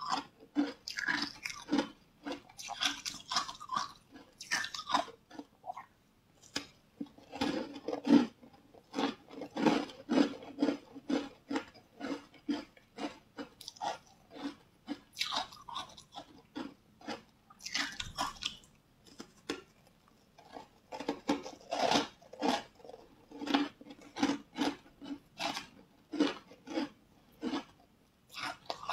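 Close-miked chewing of a green-powder-dusted piece of food: a steady run of wet mouth and chewing sounds, about two chews a second.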